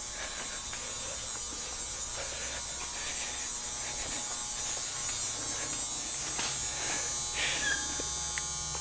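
A steady electric whirring hum with a high hiss, holding an even level with no rhythm or pauses.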